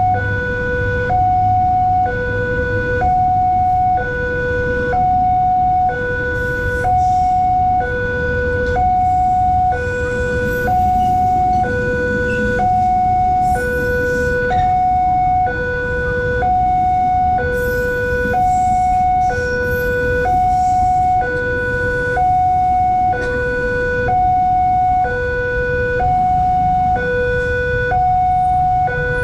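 Railway level-crossing warning siren sounding a two-tone hi-lo wail, switching between a low and a higher tone about once a second. A passenger train runs through the crossing underneath it with a low rumble.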